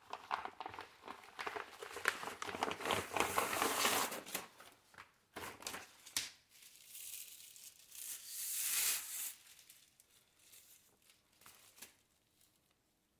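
Plastic packaging crinkling and rustling as a sword is pulled out of its clear plastic sleeve and inner wrapping. The noise is densest for the first four seconds, comes back as one long rustle a few seconds later, then dies away to a few faint ticks.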